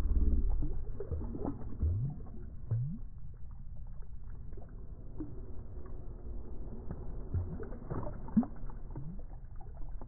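Shallow lake water lapping and gurgling at a weedy shoreline, stirred by a released striped bass swimming off, with a few short gurgles and a louder swirl at the start.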